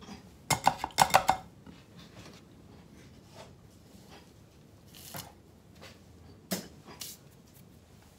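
Clinks and knocks of hard objects, bonsai hand tools and the ceramic pot, being handled on a work table: a quick run of clatters about half a second in, then a few single knocks later on.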